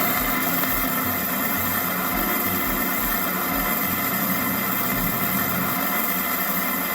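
Electric bidet's wash nozzle spraying a steady jet of water into a cup held over it: a continuous, even hiss.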